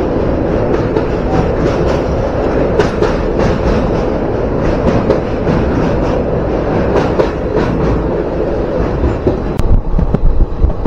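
Express passenger train running at speed across a steel girder bridge, heard from inside a chair-car coach: a steady rumble of wheels on rail with a rattle of short clacks. The rattling grows more uneven near the end.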